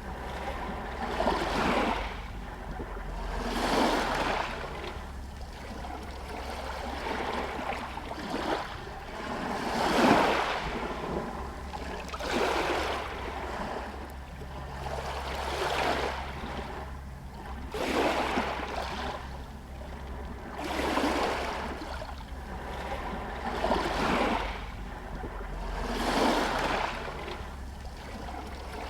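Small Adriatic Sea waves lapping against stones, each wash swelling and fading every two to three seconds, the strongest about a third of the way in, over a steady low rumble.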